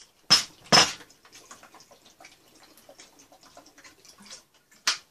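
Handling a plastic bottle and dishes on a food tray: two sharp knocks about a second in, light clicks and clatter, then two more sharp knocks near the end.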